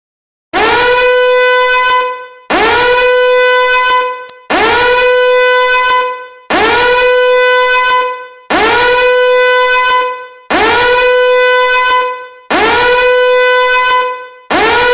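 A horn-like sound effect blasting eight times, about every two seconds: each loud blast swoops up into a steady, buzzy held note lasting under two seconds.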